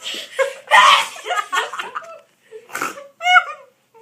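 A girl sneezing loudly about a second in, then giggling and laughing.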